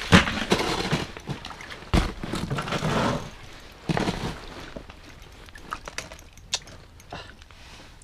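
Knocks and rustling from people, clothing and fishing gear on the snowy ice while a hooked whitefish is brought up through the ice hole and landed. Sharp knocks come about every two seconds, with scuffing between, and the sounds grow quieter in the second half.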